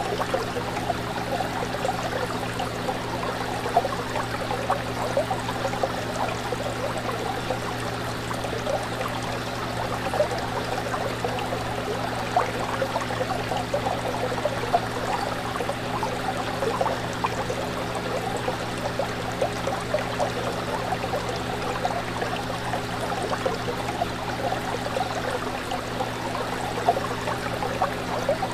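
Aquarium water running and trickling steadily, with many small splashes and bubbles, over a low steady hum.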